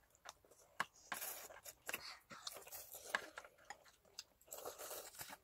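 Cup-ramen noodles being slurped, two hissy slurps about a second long, with light clicks of chopsticks against bowls and cups.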